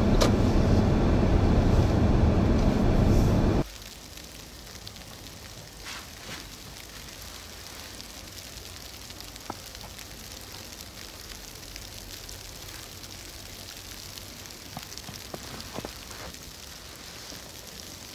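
Steady vehicle road and engine noise that cuts off abruptly about three and a half seconds in, leaving a faint steady hiss with scattered light ticks and crackles.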